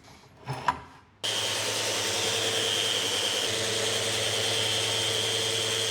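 A small electric motor whirs at a steady pitch for about five seconds, starting and stopping abruptly.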